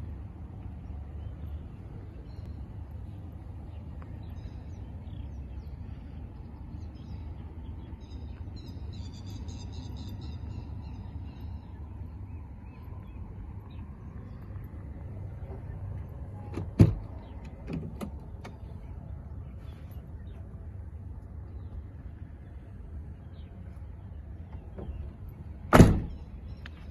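Isuzu ELF truck's diesel engine idling with a steady low rumble. Two sharp knocks stand out over it, one a little past the middle and a louder one near the end.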